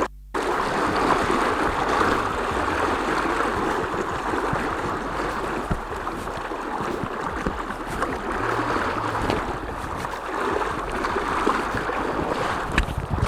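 Water sloshing and splashing around legs wading through a high, fast-flowing river, over the rush of the current.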